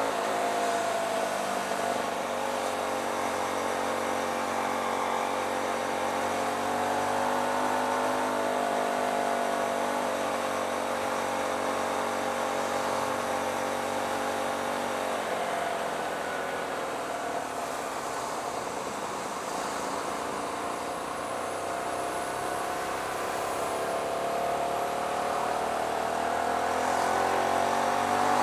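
Hyosung GT125R's 125cc V-twin engine running on the move, its pitch falling as the bike slows about halfway through and rising again as it accelerates near the end, over wind and road noise.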